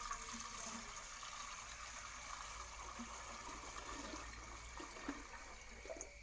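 Water running steadily from a tap, filling a container for a fish bowl.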